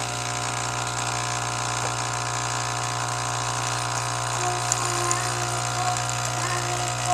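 Nescafé Dolce Gusto Genio capsule coffee machine's pump running while it brews a drink, a steady mechanical hum.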